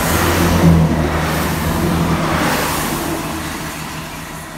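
Great Western Railway diesel multiple unit passing close at speed: its diesel engines hum together with wheel and rail noise. Loudest about a second in, then fading steadily as it draws away.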